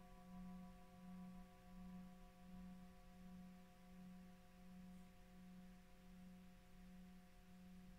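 Singing bowl ringing on, faint and slowly fading: a low hum with a slow pulsing waver and several fainter higher overtones held steady.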